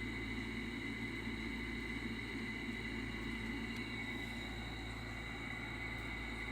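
Steady background hiss and hum with a faint constant high whine, and no distinct events.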